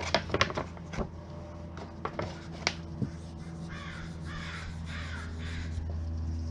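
A bird, crow-like, cawing harshly about four times in a row a little past the middle, over a steady low hum. A few light clicks come near the start.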